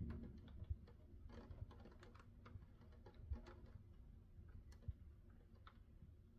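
Faint, irregular tapping of raindrops during a thunderstorm, several light ticks a second. A low rumble fades away within the first second.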